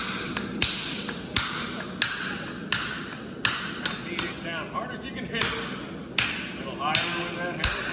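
Hand hammer striking a red-hot knife blank on a steel anvil: a steady run of ringing blows, about one and a half a second, with a short pause a little past halfway. This is hot steel being forged into a blade.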